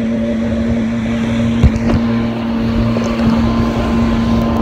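Jet ski engine running steadily at speed, a constant drone over a rush of wind and water. There is a single sharp knock about one and a half seconds in.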